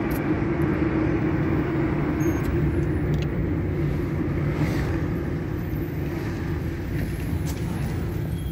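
Steady engine and road noise heard inside the cabin of a car moving along a town street, a low, even hum with no sudden events.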